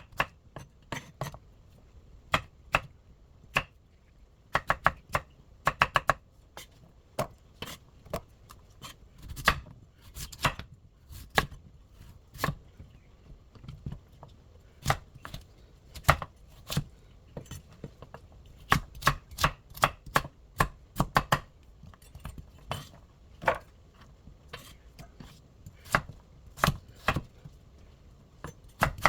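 Kitchen knife chopping vegetables on a cutting board: sharp knocks in quick runs of several strokes, with short pauses between the runs.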